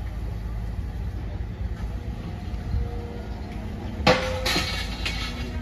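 Excavator's diesel engine running steadily in the background, with a sudden loud clatter about four seconds in, lasting about a second, as debris is moved.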